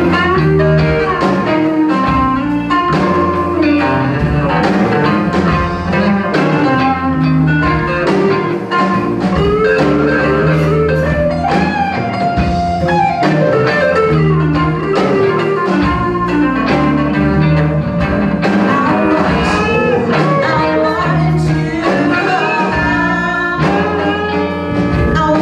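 A live band playing: electric guitars, bass guitar and drum kit, with a woman singing lead.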